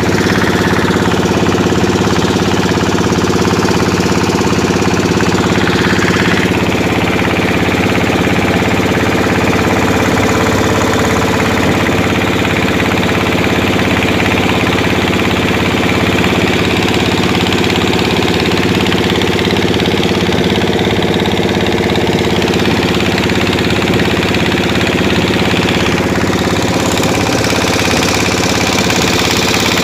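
Engine of a pompong, a small wooden motorboat, running steadily under way, with a hiss of wind and water over it.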